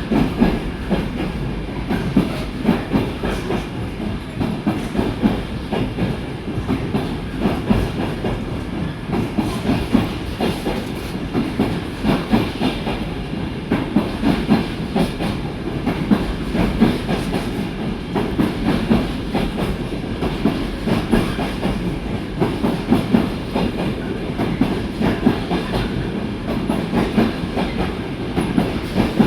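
Train running past on the track, a steady rumble with the wheels clicking continuously over rail joints.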